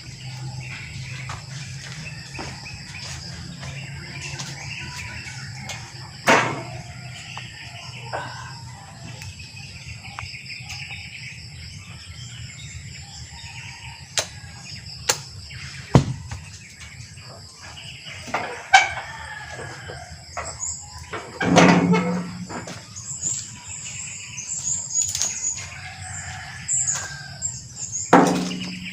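Backyard birds chirping and calling, with a steady high hum underneath and several sudden louder sounds, the loudest about three-quarters of the way through.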